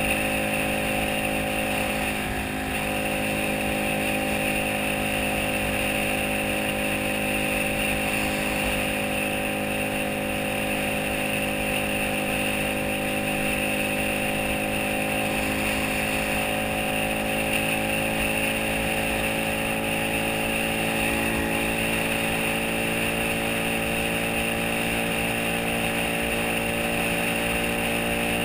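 Motorcycle engine running at a steady cruising speed, its note creeping slowly higher, with wind rumble on the microphone.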